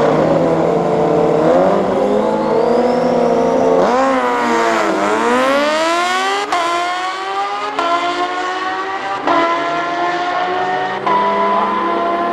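Two drag-racing motorcycles, a supercharged Kawasaki Ninja H2 and a turbocharged Suzuki Hayabusa, both inline-fours, hold revs on the start line and then launch about four seconds in. Their engines rev hard down the strip, the pitch climbing and then dropping sharply at each of several quick upshifts.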